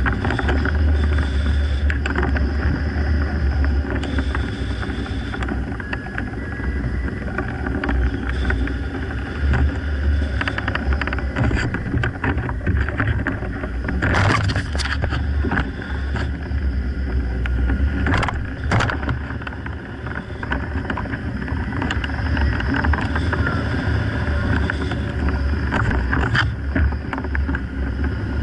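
Wind rushing over the microphone of a camera on a gliding hang glider, a steady low rumble of airflow with a few brief louder gusts about halfway through.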